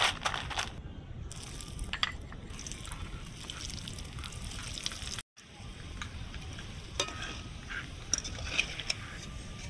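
Vegetable chops deep-frying in hot oil in a metal kadai, with a steady sizzle. Several sharp clinks from the wire strainer against the pan, and from chops being handled, come through it, one right at the start and a few near the end.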